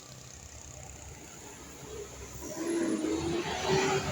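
A road vehicle passes, its noise swelling from about two seconds in, with two short steady tones sounding during the pass.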